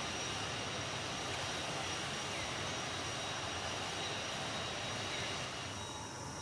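Steady outdoor background noise: a low rumble and hiss with faint high steady tones over it, thinning slightly near the end.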